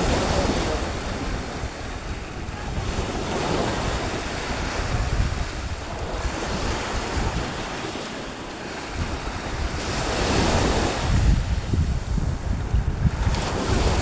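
Small sea waves breaking and washing against rocks at the shoreline, swelling and easing every few seconds. Wind buffets the microphone, heaviest in the last few seconds.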